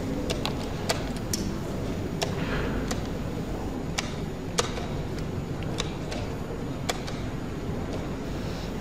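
Chess pieces set down on a wooden board and chess clock buttons pressed: about ten sharp clicks at uneven intervals over a steady low room hum.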